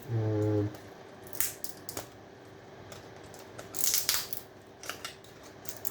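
Scattered clicks and knocks, with a short rattling cluster about four seconds in, from plastic and metal parts being handled as an electronic device is pulled apart by hand. A faint steady hum runs underneath, and a brief hum of the voice comes at the start.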